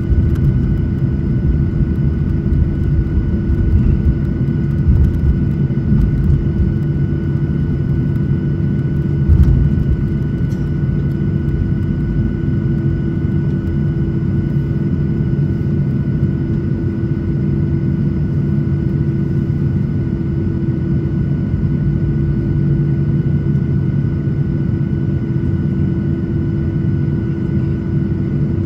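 Jet airliner cabin noise on the ground: the engines running at low power with a steady hum of several held tones over a low rumble. A single bump about nine seconds in.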